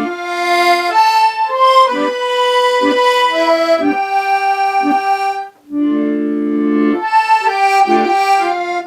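Accordion playing a slow melody in long held notes over short left-hand bass and chord stabs, in a slow go-go rhythm. The sound breaks off briefly a little past halfway, then the playing resumes.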